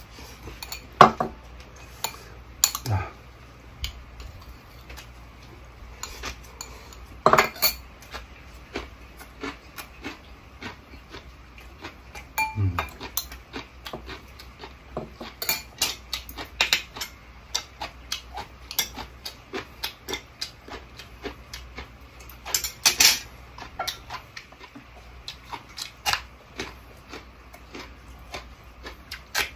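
Metal spoon and chopsticks clinking and scraping against ceramic bowls and plates during a meal, in scattered, irregular clicks with a few louder knocks.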